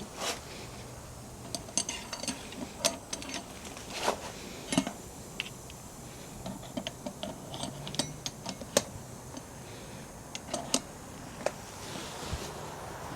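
Irregular light metallic clicks and taps, a dozen or more scattered sharp knocks, from hand tools and metal parts being handled during motorcycle wheel balancing.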